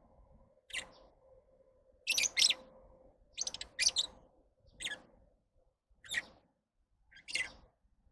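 Lovebirds calling with short, high-pitched chirps that come in about six separate bursts, roughly one every second or so.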